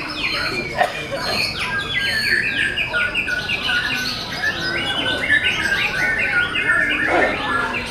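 Several white-rumped shamas (murai batu) singing at once, a dense, unbroken tangle of quick, overlapping whistled notes and trills.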